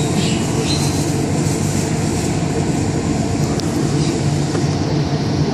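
Steady hum and rumble inside a Bombardier Innovia APM100 rubber-tyred people-mover car, even throughout.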